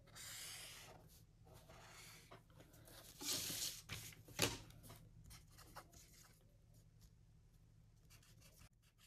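A marker pen scratches a line along a plastic ruler on pattern paper. About three seconds in, paper slides and rustles as the sheets are moved, and a sharp tap follows as the plastic French curve ruler is set down. Lighter rubbing and scratching on the paper continue after that.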